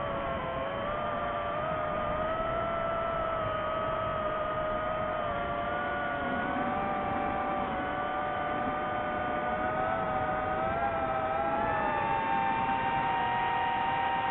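DJI FPV drone's four electric motors and propellers whining in flight, the tones wandering up and down with throttle and climbing a little near the end.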